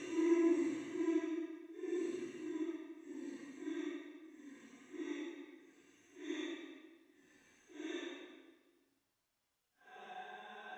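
Ghostly sobbing of a girl, a horror sound effect: a run of crying moans about once a second, growing fainter. It breaks off for about a second, and a steady eerie tone starts near the end.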